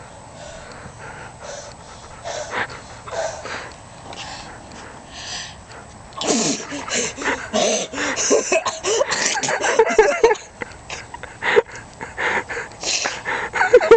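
A man's allergy sneezing fit: wheezing, gasping breaths and repeated sneezes, fairly quiet for the first several seconds, then a dense run of loud sneezes and gasps from about six seconds in.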